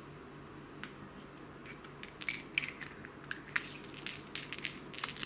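Handling noise from an old plastic screwdriver handle and its cap: light, scattered clicks and taps starting about two seconds in, with a sharper click near the end as the cap goes onto the handle's bit compartment.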